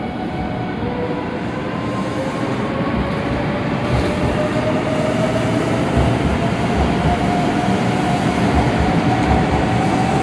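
A 500 series Shinkansen accelerating away from the platform: the electric traction-motor whine rises slowly in pitch over a rumble of wheels on rail, and both grow steadily louder as the train gathers speed.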